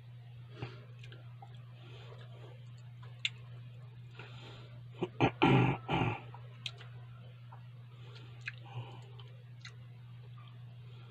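A person chewing a mouthful of ham on bread with the mouth closed: soft wet mouth noises and small clicks, with a cluster of louder noises about halfway through, over a steady low hum.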